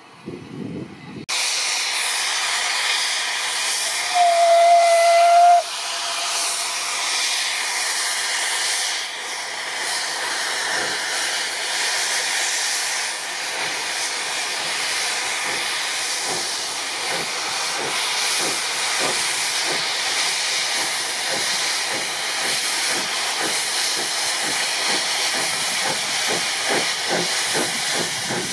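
Steam tank locomotive 51456 starting away with its train: a steady hiss of escaping steam, one whistle blast of about a second and a half a few seconds in, then exhaust beats that come quicker as the train picks up speed.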